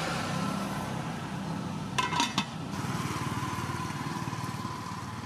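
A small engine running steadily in the background, its low rumble slowly fading, with a few sharp metallic clinks about two seconds in.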